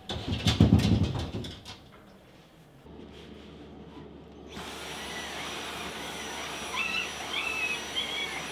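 A cordless stick vacuum cleaner starts up about three seconds in and runs steadily with a high whine while it is pushed over artificial turf. It opens with a burst of knocks and thumps, and near the end a dog whines in short high cries over the vacuum.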